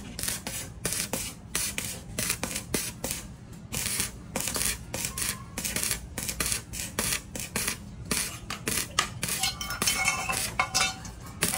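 Rapid, irregular scraping strokes, several a second, over a steady low hum, with a few ringing metallic clinks near the end.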